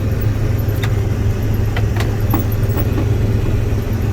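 John Deere 9500 combine running steadily with the header and threshing still engaged, a steady low drone. A few light clicks sound over it.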